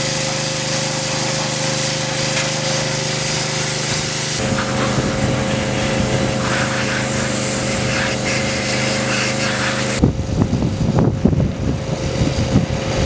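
Pressure washer running steadily, a motor drone under the hiss of the water jet, shifting slightly in pitch about four seconds in. It stops about ten seconds in, giving way to irregular knocks and scrapes.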